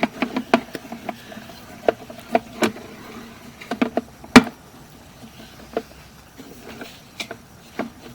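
Irregular sharp clicks and knocks, a few each second, with one louder knock about four seconds in.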